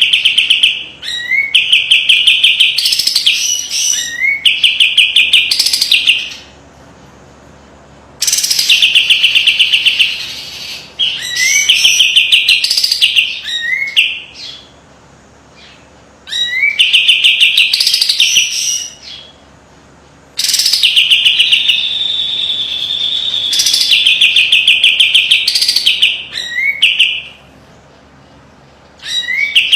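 A caged kapas tembak songbird singing its 'besetan', which is rapid, sharp, buzzy trilled phrases. Each phrase starts with quick rising notes and lasts a few seconds, and the bird repeats them with short pauses, with a longer, steadier trill about two-thirds of the way through.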